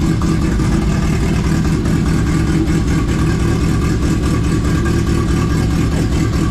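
Turbocharged Ford Zetec four-cylinder in a Mk1 Fiesta running steadily at idle through its new full exhaust. It is loud, which the owner puts down to the wastegate holding open and letting exhaust out past it.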